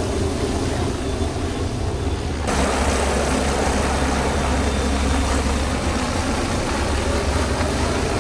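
MD-520MG light helicopter flying low past: steady rotor and engine noise. About two and a half seconds in, the sound abruptly jumps to a fuller, slightly louder noise at an edit.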